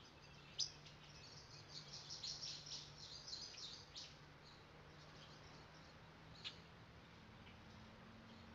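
Near silence: faint room tone with a low hum and a few faint, short high chirps, about half a second in, scattered from two to four seconds in, and once more past six seconds.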